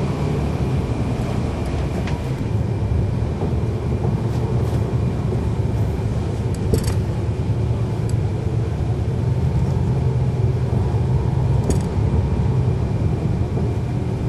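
Cummins ISL9 diesel engine and ZF Ecolife automatic transmission of a 2011 NABI 40-SFW transit bus, heard from on board: a steady low drone. A couple of short clicks come through in the middle and near the end.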